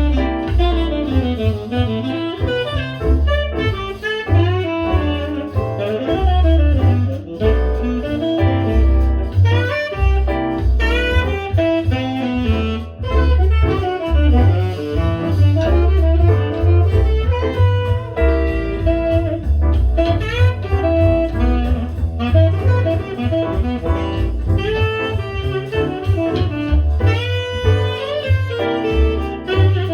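Jazz with a saxophone melody over a heavy, pulsing bass line, played back through Fyne Audio F500 SP hi-fi loudspeakers in a room.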